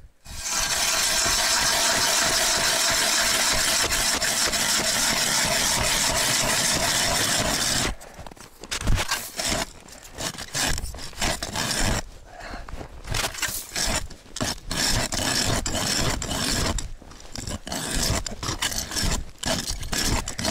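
Hand ice auger drilling through ice, its blades grinding in a steady pitched tone for about the first eight seconds, then scraping in uneven strokes with short pauses as the crank turns.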